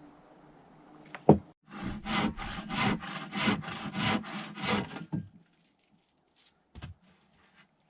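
A single sharp knock of wood, then a hand saw cutting through a wooden board with about seven even back-and-forth strokes, stopping after a few seconds; a light knock follows near the end.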